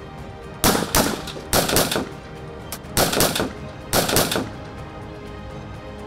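AK-47 rifles firing on a range in four short rapid bursts, each about half a second long, over background music.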